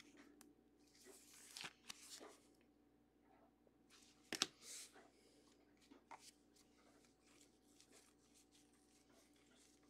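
Faint rustling of trading cards and a clear plastic card sleeve being handled, with one sharp click about four seconds in.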